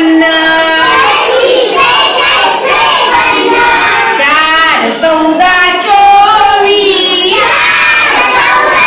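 A class of young children singing a Marathi counting song through the numbers one to sixty in unison, the tune rising and falling. Near the end the voices turn rougher and more shouted.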